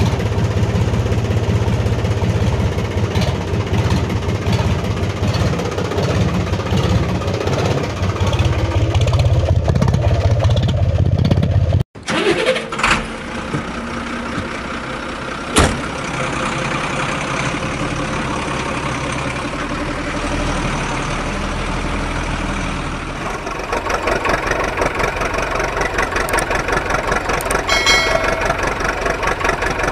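Vehicle engine running and idling, with a sudden cut about twelve seconds in, after which a different, steadier engine sound runs on and changes again later. Near the end there is a brief chime.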